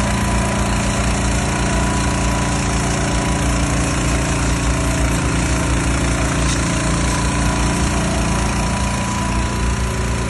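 Van-mounted pressure washer running steadily: a small engine's even drone with a constant whine above it.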